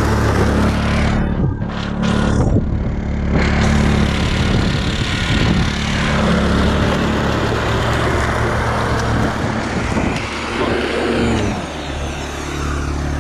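Lawn mower running steadily while being pushed across grass, a constant motor hum under a rushing whirr of the blade and cutting.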